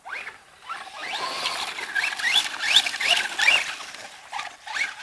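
Electric radio-controlled car's motor whining in short rising sweeps, repeated several times in quick succession as its speed goes up and down.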